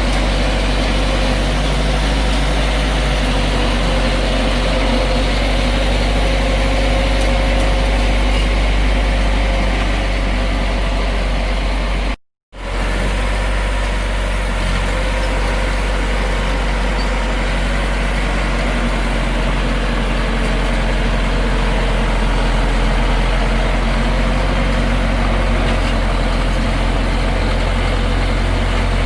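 Bulldozer's heavy diesel engine running steadily, with a strong low drone. It cuts to silence for a moment about twelve seconds in, then resumes unchanged.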